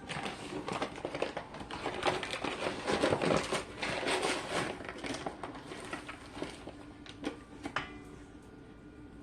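Granulated sugar being scooped with a measuring cup and poured into a mixing bowl: a grainy rustling hiss with small clicks and scrapes that dies away after about seven seconds, followed by a couple of taps.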